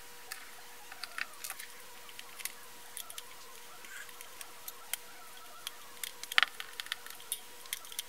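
Scattered small clicks and taps of a screwdriver and fingers working on a hair dryer's plastic motor housing and wiring, with one louder click about six and a half seconds in, over a faint steady hum.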